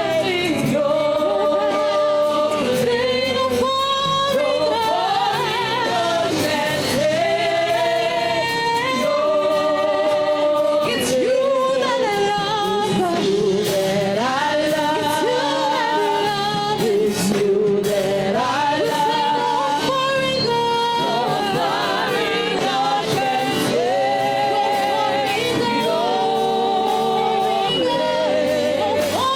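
Gospel worship music: singing in long, wavering held notes over instrumental accompaniment.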